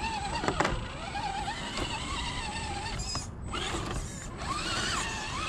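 Element RC Enduro Trailrunner crawler's electric motor and gearbox whining as it climbs out of a muddy rut, the pitch rising and falling with the throttle and dropping out briefly about three seconds in.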